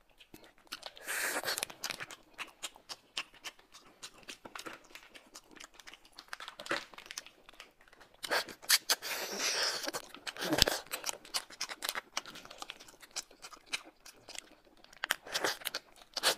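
Small plastic snack packets being torn open and crinkled by hand and teeth: a run of sharp crackles and clicks, with longer tearing rips about a second in and again around eight to ten seconds.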